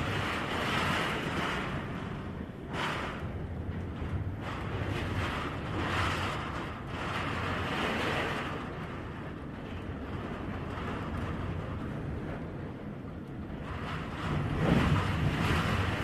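Typhoon winds roaring and gusting around the house, heard from indoors, swelling and easing every few seconds with the strongest gust near the end.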